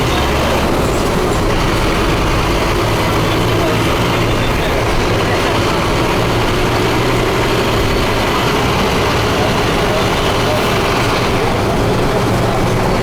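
Scania DC9 109 nine-litre five-cylinder diesel engine of an F250HB bus running steadily and loudly.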